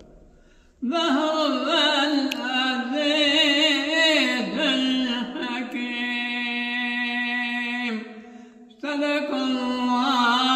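An elderly man reciting the Quran in a melodic chant, starting about a second in. He holds one long steady note for about two seconds, breaks off briefly for breath, then resumes.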